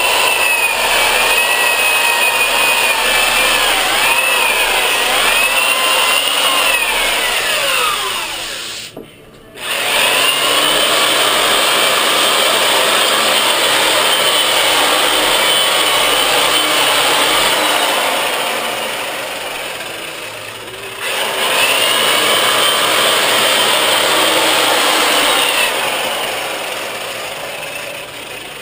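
Milwaukee 5540 corded sander/polisher with a foam power pad and sandpaper disc sanding a fiberglassed surfboard: a motor whine that wavers in pitch as the pad is pressed and moved over the board. About eight seconds in the whine falls away as the tool winds down and it starts again a second later; it eases off around two-thirds of the way through, picks back up, and winds down near the end.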